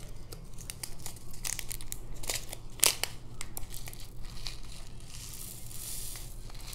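Crinkling and tearing of a small plastic resealable bag being opened and handled, with scattered light clicks. Near the end comes a denser, hissing rattle as the tiny square diamond-painting drills spill into a plastic tray.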